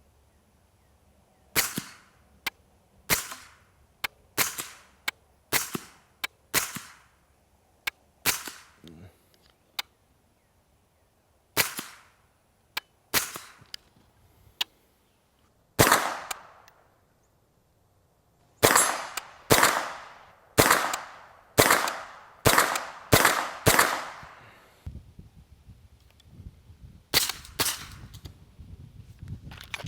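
SIG MPX 9mm carbine firing: single shots about a second apart, then a quicker string of about eight shots, then a few more near the end, each with a short echo.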